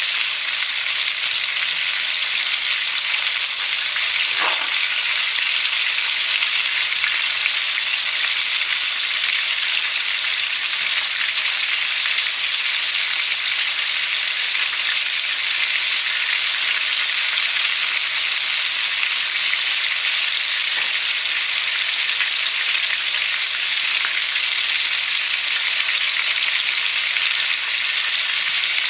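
Flour-dredged pieces of salt cod (baccalà) shallow-frying in extra-virgin olive oil in a pan, a steady even sizzle as the second side cooks.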